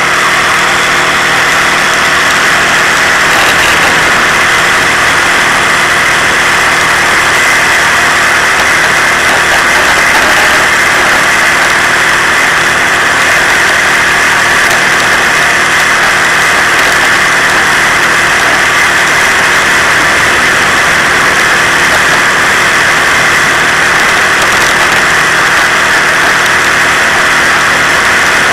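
Moped engine running steadily at cruising speed, heard from on board while riding, loud and unbroken.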